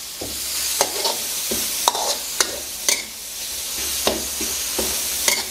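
Pounded dried-chili and herb paste sizzling in hot oil in a metal wok, stirred with a metal spatula that scrapes and clinks against the pan about twice a second, unevenly.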